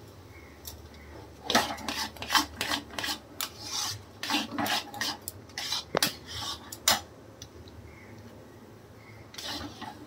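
Flat metal spatula scraping and stirring thick halwa around a metal kadhai while it roasts on medium flame. There is a quick run of scraping strokes from about a second and a half in to about seven seconds, a short pause, then a brief scrape again near the end.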